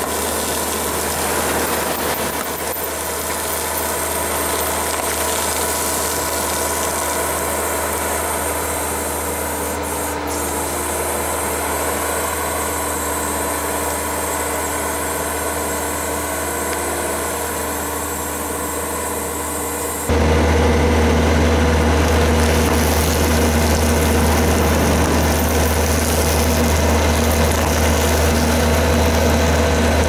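Road roller's diesel engine running steadily at idle, a constant low hum. About two-thirds of the way through it suddenly gets louder and deeper.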